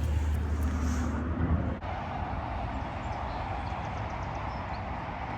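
Steady rush of flowing river water. A low rumble on the microphone cuts off abruptly about two seconds in, leaving the even sound of the current.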